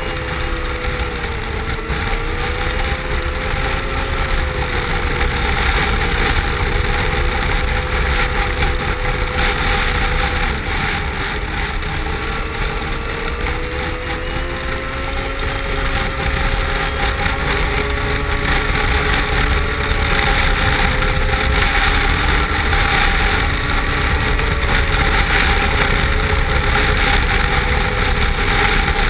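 Yamaha RX-1 snowmobile's four-stroke four-cylinder engine running at a steady trail pace, its pitch drifting gently up and down with the throttle, over a steady rushing noise.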